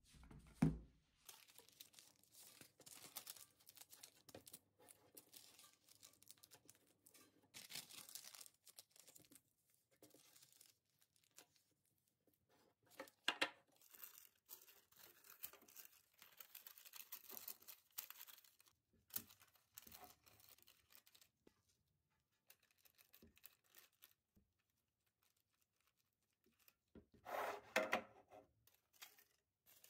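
Sheets of white paper being handled, folded and pressed into a clear plastic storage container: irregular paper rustling and tearing, with a short low knock about a second in and a louder spell of rustling near the end.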